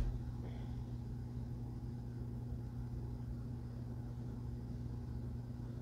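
Steady low hum with a faint rustle of quilting cotton being handled and tucked about half a second in.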